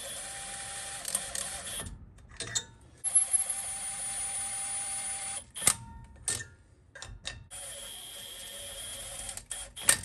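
Cordless Milwaukee M18 power tool with a long extension and socket spinning nuts down onto the rear hub's studs. It runs three times, a couple of seconds each, as a steady motor whine, with sharp metal clicks of socket and nuts between the runs.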